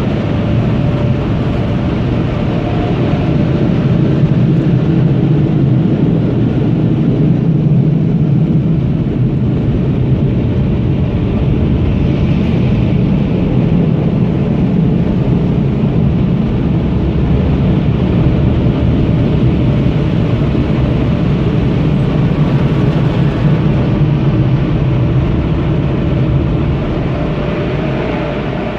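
Car wash air-blower dryers running with a steady, loud roar, heard from inside a minivan's cabin.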